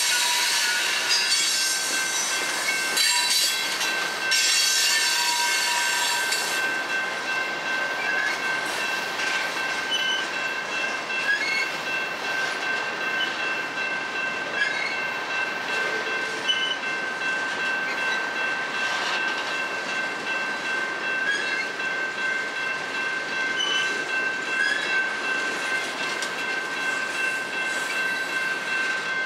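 Cars of a long Norfolk Southern manifest freight train rolling past: tank cars, covered hoppers and autoracks, their wheels rumbling and clattering on the rails. A steady high-pitched wheel squeal rings on throughout. A brighter hiss dies down about six and a half seconds in.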